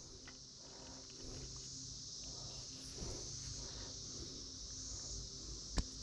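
Steady, high insect chorus of crickets, an even drone with no breaks. Faint low rustling underneath, and one sharp click near the end.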